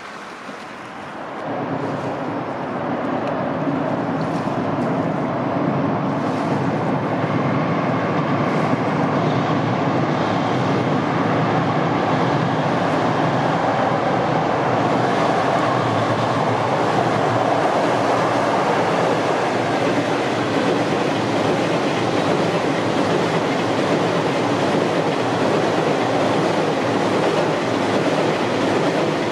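Electric-hauled container freight train running across a steel girder railway bridge: a steady rumble of wheels on the rails and bridge that grows loud about a second and a half in and stays loud as the long string of container wagons passes.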